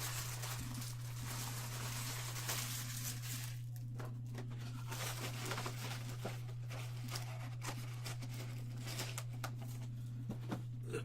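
Sports-card packs being torn open and their wrappers crinkled, then cards handled with light clicks and taps. A steady low hum runs underneath.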